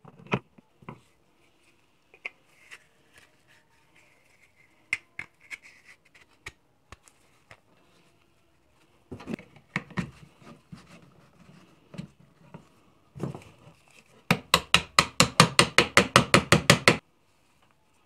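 PVC pipe pieces and a metal disc being handled and fitted together on a workbench: scattered clicks, knocks and rubbing. Near the end comes a fast run of about twenty sharp taps in under three seconds, the loudest part.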